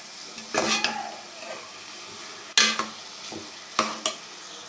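Moong dal frying in ghee with masala, sizzling steadily, as a spoon stirs and scrapes the pot in three strokes: about half a second in, at two and a half seconds and near four seconds.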